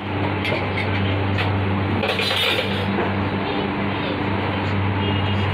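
Working bakery noise: a steady low machine hum under a constant background hiss, with a few light clicks and a brief rustling clatter about two seconds in.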